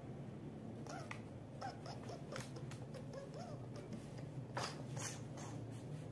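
Wax crayon scribbling on paper: short scratchy strokes, a few of them sharper near the start and about two thirds through, over a steady low hum.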